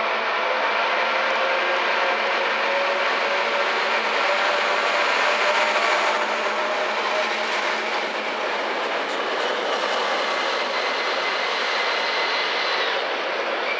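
A DB track-maintenance train running through the station without stopping: steady rolling noise with several held tones over it, one high tone cutting off near the end.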